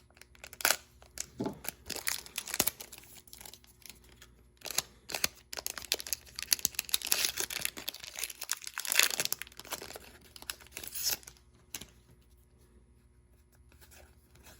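Foil Pokémon booster pack wrapper being torn open and crinkled by hand, with scattered crackles at first and the densest tearing and crinkling in the middle, stopping about three-quarters of the way through.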